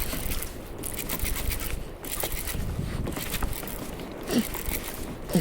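Wind on the microphone and water lapping against a kayak, with a couple of short faint squeaks near the end.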